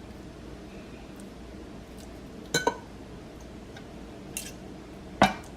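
Kitchenware clinking lightly: a quick pair of clinks about two and a half seconds in, a faint tap later, and a sharper clink near the end.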